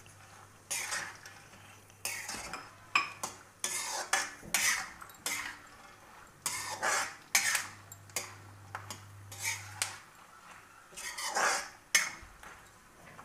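A metal spoon scraping and clinking against a metal kadhai, stirring peanuts, almonds and cashews as they fry in ghee, in a series of irregular strokes.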